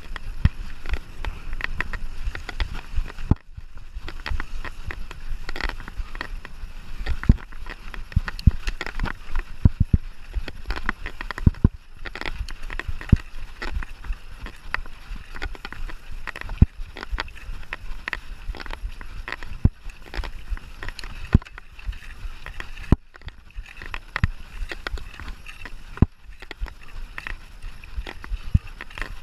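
Mountain bike being ridden over a rough trail: a low rumble of tyres on the ground, with the bike rattling and knocking in many sharp, irregular clatters.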